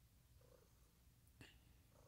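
Tabby cat purring faintly with a low, pulsing rumble, the purr swelling with each breath. A single sharp click comes about one and a half seconds in.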